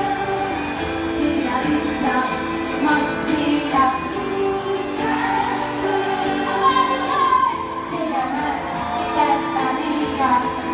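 Live pop music: a woman singing lead over the band, heard from high up in the arena seats.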